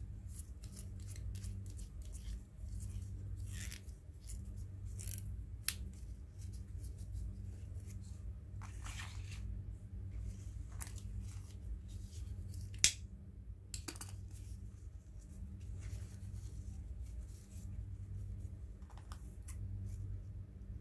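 Hands handling and folding ribbon into a bow: a run of short rustles and crinkles, with scattered sharp clicks, the loudest about halfway through. A steady low hum lies underneath.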